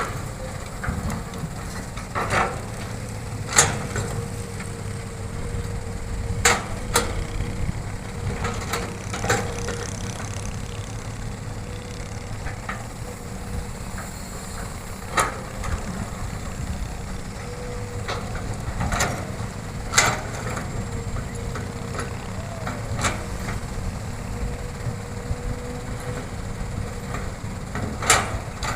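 Hitachi excavator's diesel engine running steadily while digging and loading soil, with sharp metallic clanks at irregular intervals every few seconds.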